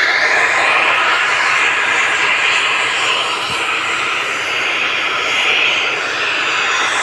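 Factory machinery running: a loud, steady mechanical noise that slowly swells and eases without a break.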